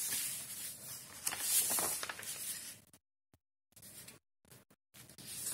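Printed paper sheets rustling and rubbing as a folded paper booklet is opened out and smoothed flat by hand. About three seconds in the sound cuts to dead silence, broken by a few brief soft touches.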